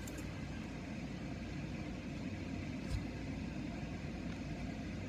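Steady low background hum with a single faint tick about three seconds in.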